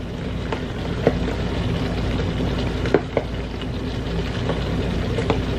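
Ground beef and vegetables sizzling steadily in the inner pot of an electric pressure cooker set to sauté, with a few light clicks.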